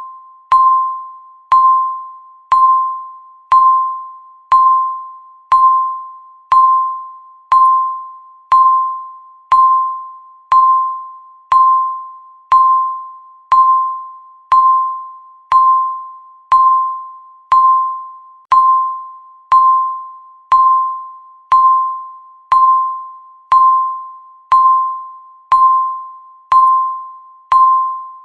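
Countdown timer beep sounding once every second, each a single clear chime-like tone that starts sharply and fades away before the next, in an even steady rhythm.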